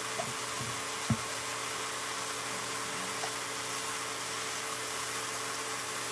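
Armadillo meat sizzling in a hot frying pan, a steady hiss with a low steady hum underneath. A short thump comes about a second in.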